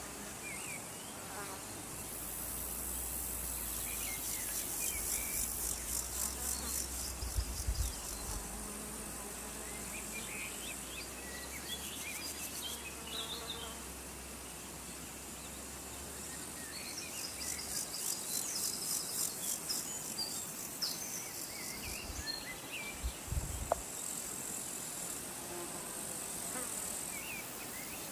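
Field insects, grasshoppers and crickets, stridulating in high, rapidly pulsed trains that come in long spells and fade between them, with short high chirps scattered through. There are a few low thumps.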